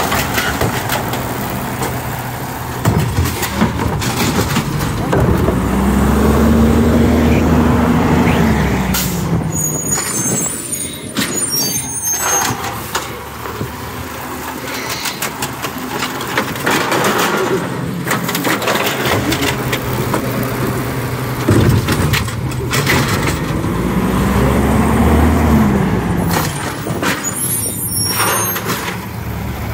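Recycling truck working the curb: its engine revs up and settles back twice, about fifteen seconds apart, each time followed by a burst of clatter and high squeaks as a bin is handled and emptied.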